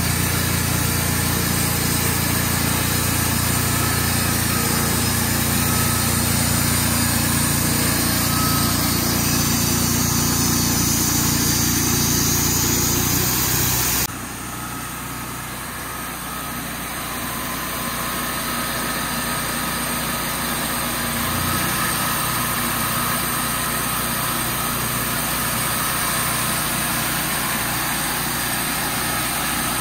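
Small engine running steadily. About halfway through, the sound cuts abruptly to a quieter, steady engine sound that slowly builds in level.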